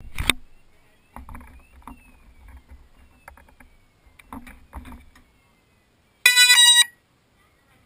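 Knocks and clicks of hands handling an SK450 quadcopter, then about six seconds in a loud electronic beep lasting about half a second from the quadcopter's electronics.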